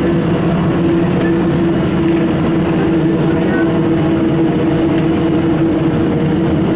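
Ikarus 260.50 city bus under way, heard from inside: a steady drone from its diesel engine and driveline over road and body rumble.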